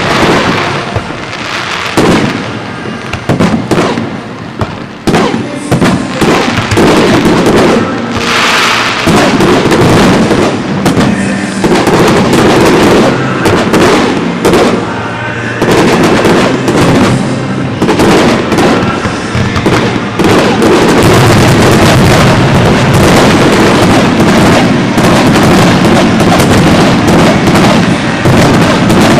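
Aerial fireworks shells bursting in a rapid, almost continuous barrage, the bangs overlapping one another.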